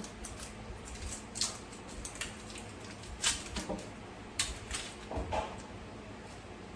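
Kitchen knife cutting on a chopping board: a handful of irregular sharp knocks and clicks.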